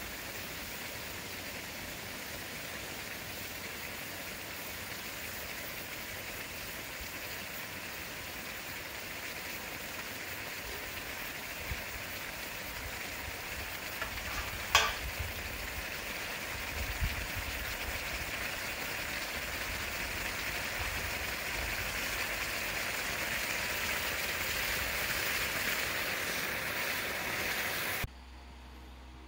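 Steady hissing noise that slowly grows louder, with a single sharp click about halfway through; it drops away suddenly to a quiet room about a second before the end.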